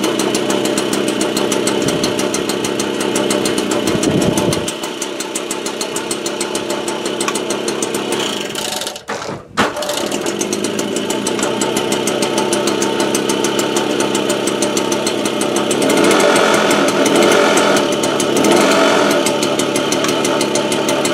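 Motobécane AV7 two-stroke single-cylinder moped engine, bored out with a 65 cc kit, running steadily just after its points ignition timing was set, sounding fairly healthy. It breaks off briefly about nine seconds in, then runs on, and the revs rise twice near the end.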